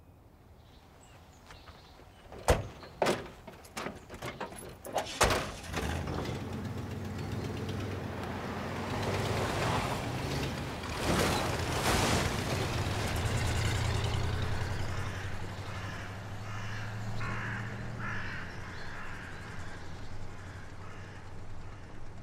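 Doors of an old pickup truck knock and slam shut, several knocks and then a loud slam about five seconds in. Then the truck's engine runs steadily as it drives away over sandy dirt, with tyre noise, easing off a little near the end.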